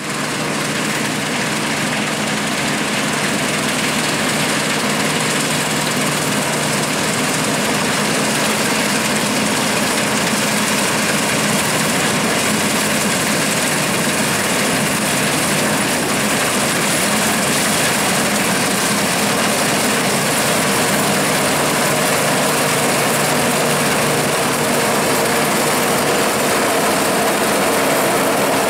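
Bizon Rekord Z058 combine harvester running steadily while harvesting oats: its diesel engine and threshing machinery make a continuous mechanical hum. It grows slightly louder as the machine approaches.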